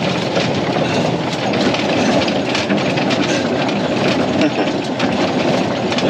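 Dump truck crawling in first gear over a rutted, rocky dirt road: the truck rattles and clatters steadily with many small knocks and bangs as it lurches over the bumps, over the engine's low running.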